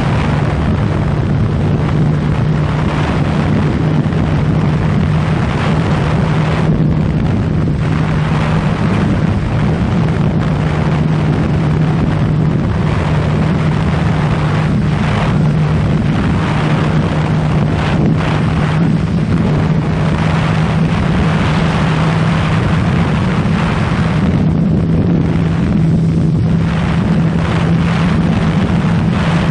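A 2015 Yamaha FZ6R's inline-four engine running at a steady, even speed with heavy wind rushing over the microphone. The engine's pitch rises slightly near the end.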